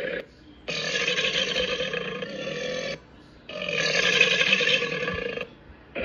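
A tablet animal-sounds app plays its crocodile call through the tablet's speaker: the same recorded clip, about two seconds long, repeats with short gaps. Two plays are heard whole, the tail of one ends just after the start, and another begins at the very end.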